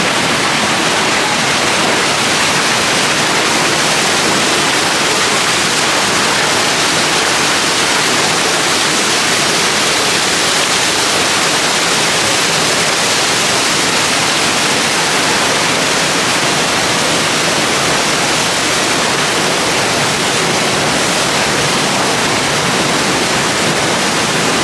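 Waterfall cascading through a narrow rocky gorge: a loud, steady, even rush of water.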